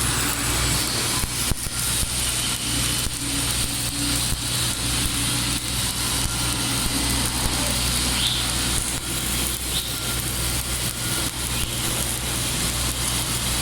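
Stick (SMAW) welding arc crackling steadily, over a steady low hum.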